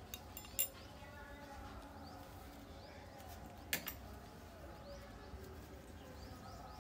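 Faint, quick bird chirps repeating, with a few light clicks, the sharpest one just under four seconds in.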